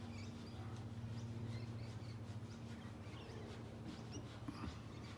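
Faint, scattered high-pitched chirps of small animals over a steady low hum.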